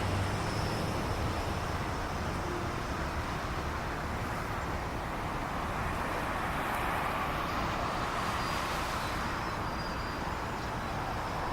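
Steady outdoor traffic rumble from road vehicles, swelling a little around the middle.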